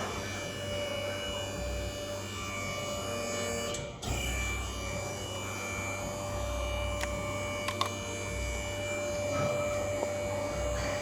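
Steady machine hum, with a few light clicks about two-thirds of the way through.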